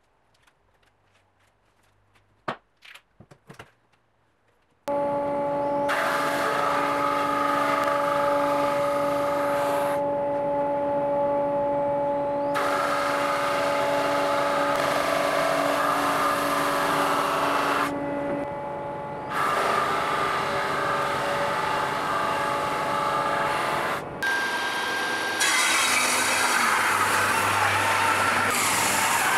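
A few light knocks of wood being set down, then from about five seconds a drum sander runs with a steady hum, its hiss rising and falling as the epoxy-filled oak slab passes through the drum. Near the end a table saw cuts through the slab.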